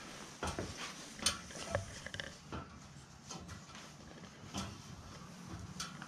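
Scattered light knocks and clicks at irregular intervals, as of people moving about and handling things in a small wooden-floored room, the sharpest about a second in.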